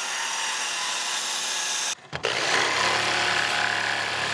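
Compact circular saw running as it plunge-cuts into a wooden board. About two seconds in it stops abruptly, and a jigsaw takes over, buzzing steadily as it cuts out the notch.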